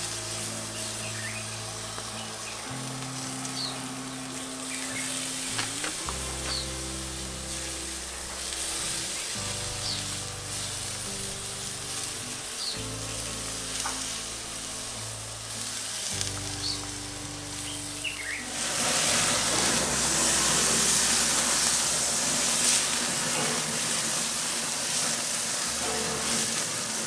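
Soft background music with birds chirping. About two-thirds of the way in, a loud sizzle starts suddenly and keeps going: boerewors sausage cooking on a braai grid over hot coals.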